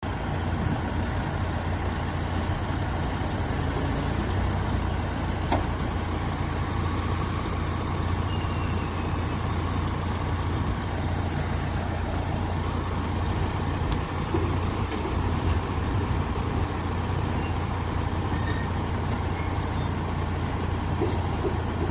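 Forklift engines running steadily with a low, even drone while two forklifts hold a heavy bus axle assembly aloft.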